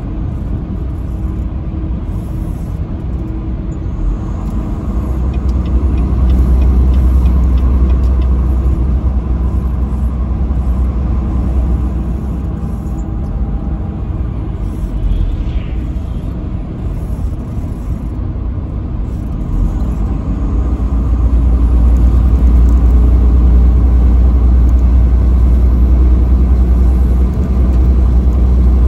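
Steady low rumble of a vehicle driving on the interstate, with engine and road noise. It grows louder about a fifth of the way in, eases off near the middle, and grows louder again in the last third.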